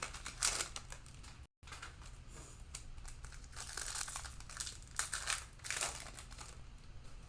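Cellophane wrapping of trading-card cello packs crinkling and tearing in several bursts as packs are opened.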